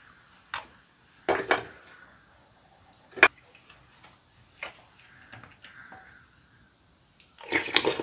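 Wooden spoon knocking and scraping in a glass bowl of chicken rice porridge, a few separate clicks with the sharpest about three seconds in, and a louder burst of eating sounds near the end as a spoonful goes to the mouth.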